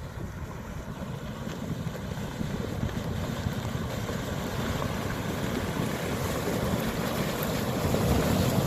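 Flash-flood water rushing steadily, growing gradually louder, with wind buffeting the microphone.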